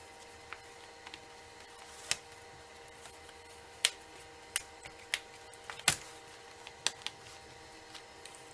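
Scattered sharp clicks and taps, about seven of them, from laptop parts and small tools being handled during a hard drive replacement, the loudest about six seconds in, over a faint steady hum.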